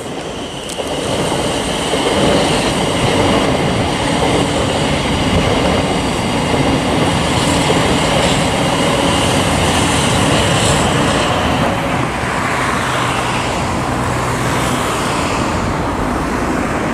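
Thameslink Class 700 electric multiple unit passing close by: a steady running noise of wheels on rail with a few steady high-pitched tones over it, easing slightly about twelve seconds in.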